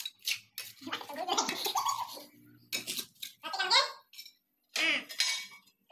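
People chatting and laughing, with a few short taps and scrapes.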